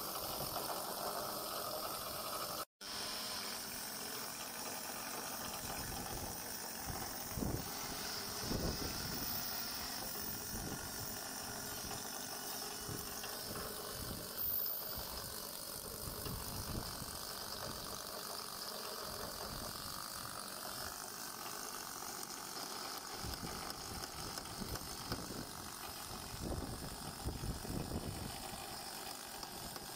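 Steady mechanical background noise, with a few short low rumbles about eight seconds in and again near the end.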